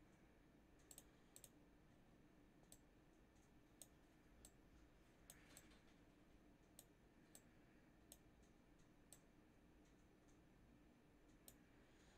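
Faint, irregular clicking from drawing on a computer, about one or two clicks a second at uneven spacing, over a low steady room hum; otherwise near silence.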